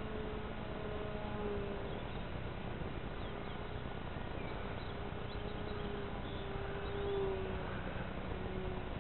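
Distant RC model airplane motor droning overhead, a faint tone whose pitch wavers slowly and swells briefly near the end, over a steady hiss.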